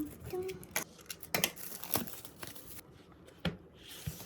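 Sealed photocard packs being handled and torn open: plastic packaging crinkling and rustling, with scattered sharp clicks and a tearing sound near the end.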